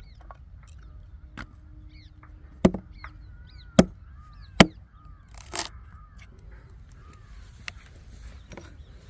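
Firewood being chopped: about six sharp wooden knocks at uneven intervals, the loudest near the middle, while birds chirp in the background.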